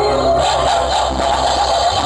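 Loud music played through a large truck-mounted speaker stack being sound-checked. The music changes about half a second in, when a wavering melody with brighter treble replaces a held steady tone.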